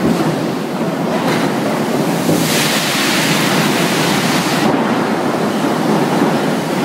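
Hot steel rolling mill stand working a red-hot slab: a loud, steady industrial noise, with a loud hiss of steam and water spray from about two and a half seconds in, lasting about two seconds and stopping sharply.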